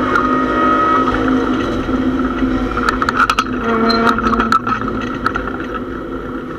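Mazda MX-6 racecar's engine running hard, heard from inside its stripped-out cabin, with a cluster of sharp rattles and clicks about three seconds in. The engine note eases off near the end.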